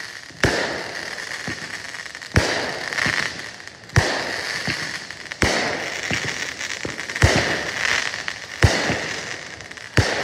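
Aerial fireworks bursting in the sky: seven sharp bangs, about one every second and a half, with a steady noisy hiss between them.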